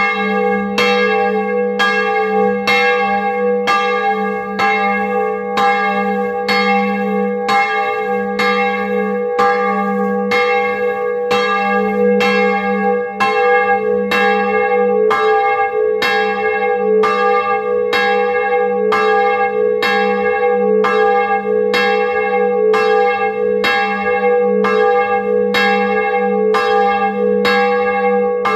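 A single bronze church bell cast in 1658 and tuned to G#3, swinging in its wooden belfry frame. The clapper strikes in an even rhythm of about once a second, and each stroke's ring runs on into the next. It is heard close up, from inside the belfry.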